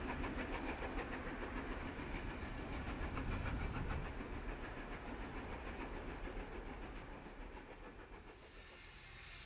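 NSWGR C36 class 4-6-0 steam locomotive 3642 pulling away with its train, its exhaust beating in a rapid, regular chuff that fades steadily as it goes out of earshot.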